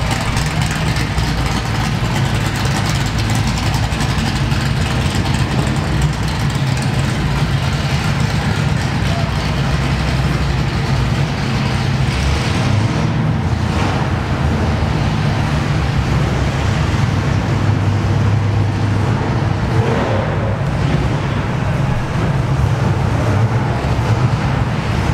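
Roots-supercharged V8 with an 8-71 blower, in a drag-built first-gen Camaro, idling loudly with a heavy big-cam lope.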